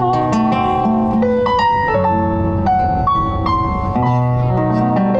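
Music: a keyboard with a piano sound plays a melody of held notes over low bass notes.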